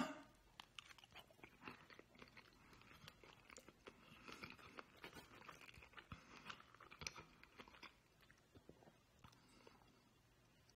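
Faint chewing of a mouthful of food: soft, irregular crunching and small wet mouth clicks, after one sharp click at the very start. The chewing stops about eight seconds in.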